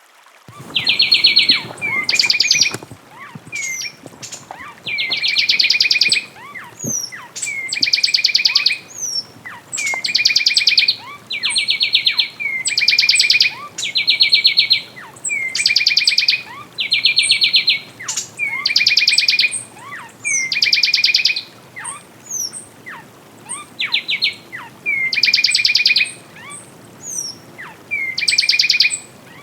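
Fulvous wren singing: loud phrases of rapid trills repeated every second or two, alternating between a flat trill and one that sweeps higher. Faint short whistles come between the phrases.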